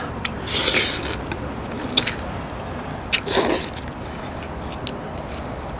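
A person slurping ramen noodles: two short, hissy draws, about half a second in and again about three seconds in, with small mouth clicks between.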